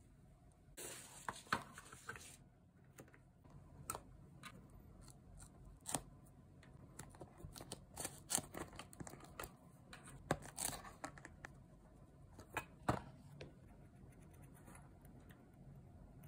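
Small sharp clicks and taps of plastic false nail tips being handled and set down, with a short rustle about a second in.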